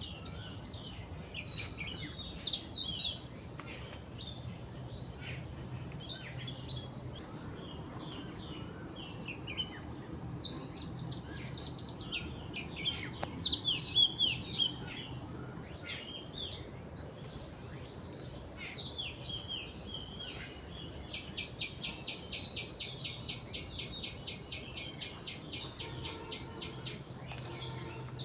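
Several garden birds chirping and calling in short, overlapping phrases. Near the end, one bird gives a fast, even trill of repeated notes lasting about six seconds.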